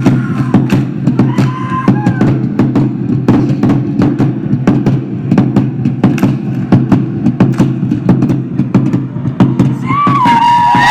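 Polynesian drum ensemble playing a fast, driving rhythm of sharp wooden strikes over a low drum. Voices call out with a long held cry near the end.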